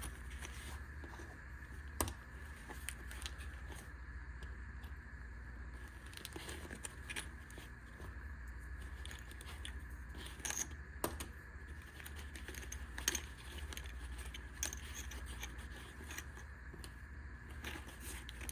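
Small everyday-carry items being handled and packed into a pouch: scattered sharp clicks, taps and light rattles, a few louder than the rest, over a steady low hum.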